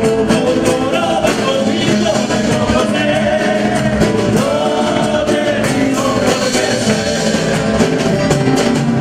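Live Latin American-style band music: a man singing into a handheld microphone over acoustic guitar accompaniment.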